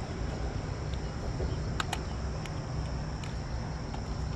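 A cleaver cutting spring onion on a plastic cutting board, a few sharp taps with two close together about two seconds in. Under it, a steady high insect trill and a steady low rumble.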